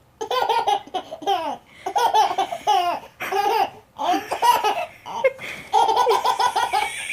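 A baby laughing in repeated bursts with short breaks between them.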